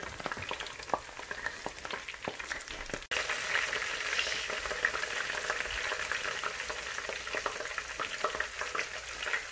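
Chopped herbs and aromatics sizzling in a nonstick frying pan: a steady hiss with scattered small pops and crackles. The sizzle jumps louder about three seconds in.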